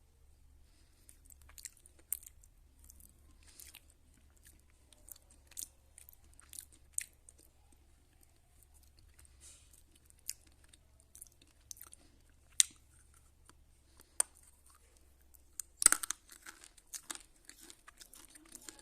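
Close-miked chewing of slate pencil, with crisp, brittle crunches at irregular intervals and a burst of louder crunches near the end.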